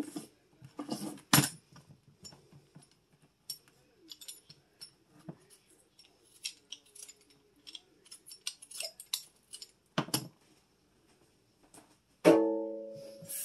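Vegetable peeler scraping the skin off a russet potato in short, irregular strokes. Near the end a single metallic clang rings out and fades over about a second.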